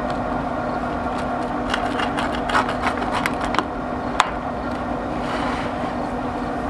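A steady mechanical hum with several light clicks and knocks, and one sharp click about four seconds in.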